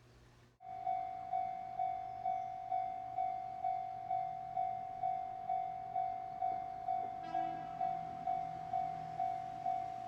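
Japanese level crossing warning bell ringing: an electronic 'kan-kan' tone repeated about twice a second, starting abruptly just under a second in, the signal that a train is approaching and the crossing is closing. A short second tone joins briefly about seven seconds in.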